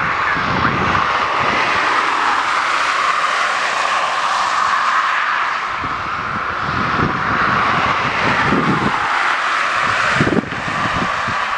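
Twin-engine jet airliner's engines at high power as it rolls down the runway: a steady jet roar with a strong hissing band. The level dips suddenly near the end.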